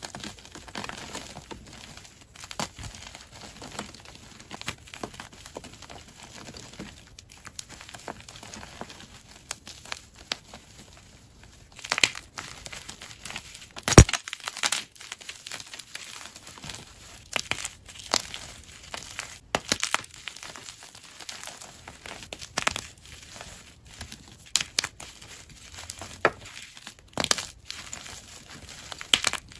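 Gym chalk being squeezed and crushed in a bare hand: irregular crunching and crackling as it crumbles, with scattered sharp snaps, the loudest about halfway through.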